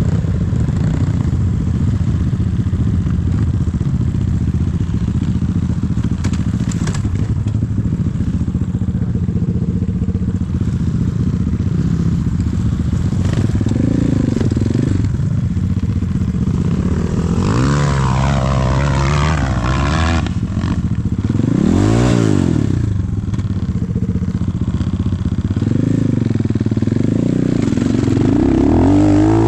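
Enduro dirt bike engines running, revving up and down over and over, with the pitch rising and falling several times in the second half.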